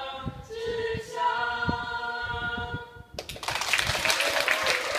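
A small group singing together in held notes, which end about three seconds in; applause breaks out at once.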